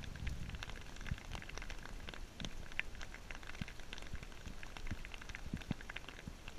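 Hail mixed with rain falling steadily, a dense, irregular patter of small clicks and ticks as the pellets strike the ground and the wooden deck.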